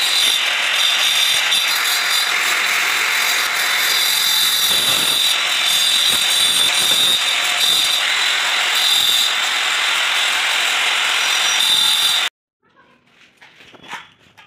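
Handheld angle grinder with a cutting disc cutting through a granite strip, running at a steady, loud, high whine. It cuts off abruptly about twelve seconds in.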